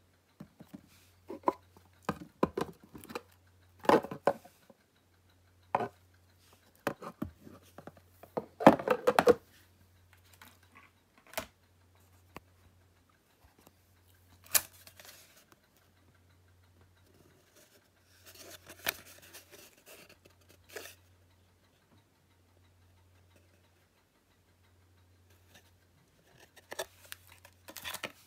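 Hands handling Blu-ray cases and their packaging: scattered clicks, taps and rustling, with the loudest knocks and rustles about 4 and 9 seconds in and more rustling near the end. A low hum comes and goes underneath.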